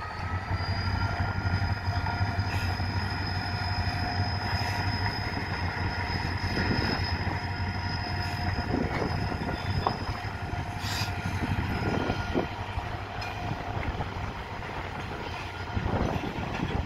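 EMD diesel-electric locomotive hauling a freight train past, its engine running with a steady low drone. A high whine climbs over the first second, holds steady, and fades about two-thirds of the way through. Short clanks from the wheels and wagons are scattered throughout.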